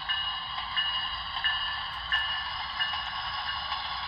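Three-rail O-gauge model diesel locomotive pulling a string of boxcars past on the track: a steady whirring hiss of wheels and motors rolling on the rails.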